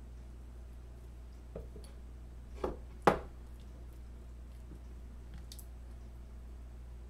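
Raw bone-in chicken pieces being packed by hand into a glass mason jar: a few handling knocks, with one sharp knock of the jar about three seconds in, and a couple of fainter clicks later, over a low steady hum.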